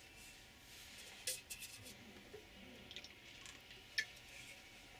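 Faint handling noises against quiet room tone: a few light clicks and soft rustles, with one sharper click about four seconds in.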